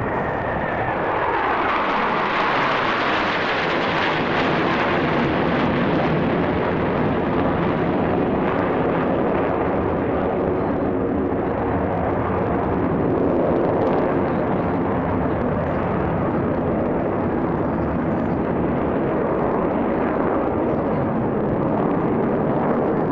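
Blue Angels F/A-18 jets flying over in a close formation: continuous loud jet engine noise, brightest in the first few seconds.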